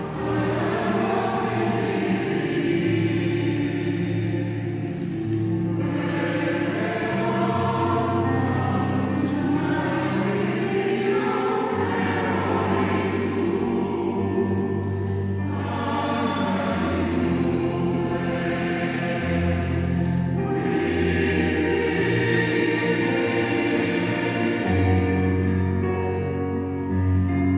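Choir singing a song in several parts, with long held chords.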